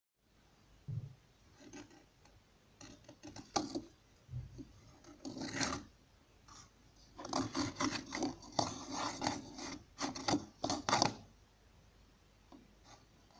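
Rasping, scraping rubbing sounds in irregular bursts, busiest and loudest a little past the middle, then dying away to faint background near the end.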